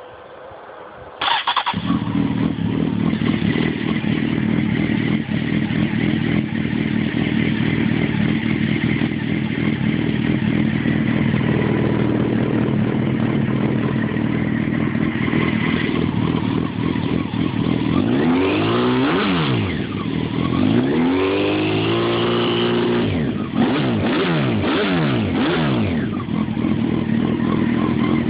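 Honda 919 inline-four motorcycle engine, breathing through CBR900RR headers and a Scorpion carbon fibre Street Extreme exhaust can, starts about a second in and idles steadily. Near the end it is revved several times, the pitch rising and falling with each blip of the throttle.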